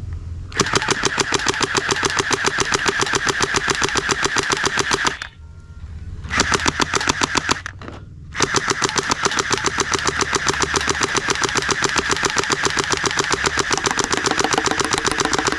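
Toy machine gun firing in long bursts: a fast, even string of shots at about eleven a second. The trigger is held three times, with short breaks about five seconds and about eight seconds in.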